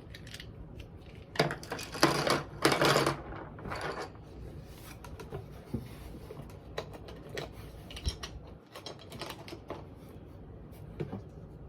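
Wooden colored pencils and pencils clattering and clicking against each other as they are dropped loosely into a cardboard shoebox, with a few louder rattles early on and lighter scattered clicks after.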